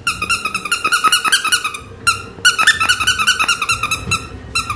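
A golden retriever puppy chewing a squeaky toy chicken, setting off rapid runs of short, same-pitched squeaks, several a second, with two brief pauses.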